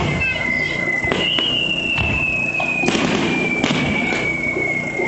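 Aerial fireworks going off in a festival display: several sharp bangs and crackles over a constant rumble. Through it runs a high whistle that slides slowly down in pitch, jumps back up about a second in and slides down again.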